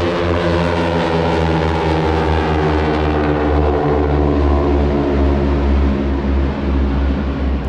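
A formation of North American T-6 Texan planes passing overhead: their radial engines and propellers drone with a deep rumble, and the pitch slowly falls as they fly by and draw away.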